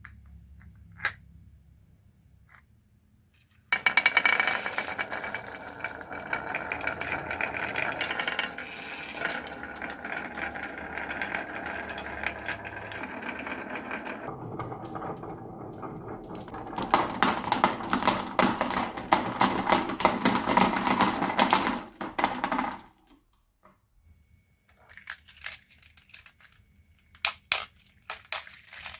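Marbles rolling and clattering along a marble run track: a long stretch of continuous rattling, then rapid clicking and clacking that stops suddenly about three-quarters of the way through, followed by a few scattered clicks near the end.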